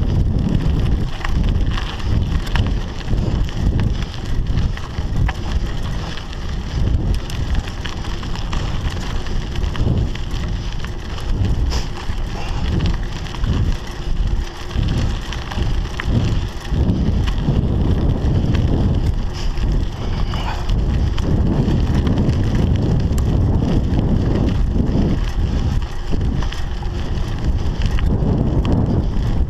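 A Scott Scale 960 hardtail mountain bike rolling fast over a loose, gravelly dirt trail, with tyre crunch and scattered clicks and rattles from the bike. Wind buffets the camera's microphone, giving a heavy, uneven rumble.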